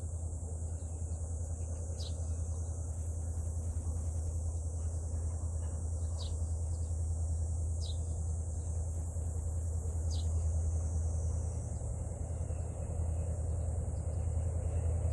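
A steady high chorus of insects, with a low steady rumble underneath and several short falling chirps from a bird.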